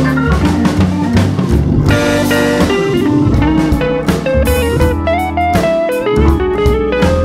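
Background music: an upbeat track with guitar, drums and bass and a stepping melody.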